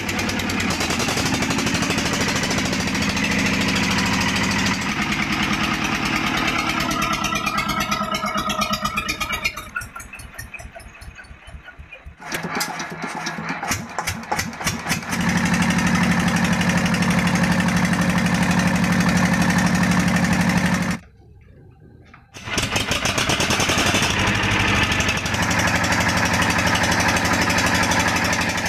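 Kirloskar two-cylinder diesel engine running with a steady knock, slowing and fading about eight to ten seconds in, then firing up again with separate beats about twelve seconds in and settling into a steady run. It cuts out briefly about twenty-one seconds in and runs on steadily after.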